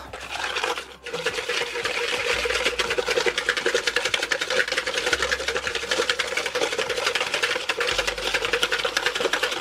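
Wire balloon whisk beating eggs and sugar in a mixing bowl, rapid steady strokes scraping and clattering against the bowl, with a brief pause about a second in. The eggs and sugar are only being mixed together, not whipped until pale.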